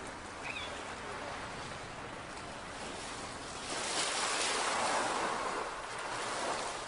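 Sea water washing in the shallows, a steady hiss of surf that swells louder about four seconds in and eases off near the end.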